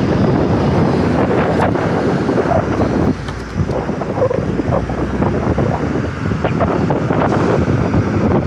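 Loud wind buffeting the microphone while riding an electric motorcycle, easing briefly about three seconds in.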